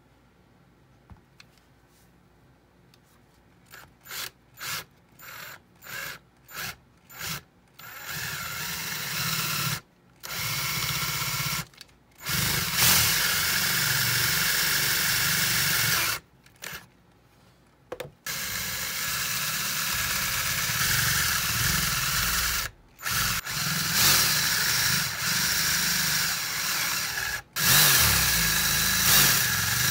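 Cordless drill with a 3/8-inch twist bit boring holes in plywood. It starts with several short bursts about four seconds in, then runs steadily for several seconds at a time with brief stops between runs.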